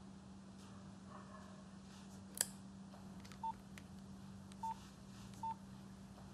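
Mobile phone key-press beeps: three short single-pitch beeps about a second apart as the phone's keys are pressed to browse its call log, after one sharp click a couple of seconds in, over a low steady hum.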